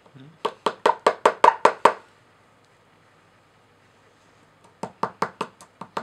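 Quick runs of sharp taps from a small pointed digging tool chipping at the hard block of a dinosaur excavation kit. There are about eight taps in the first two seconds, a pause, then another run near the end.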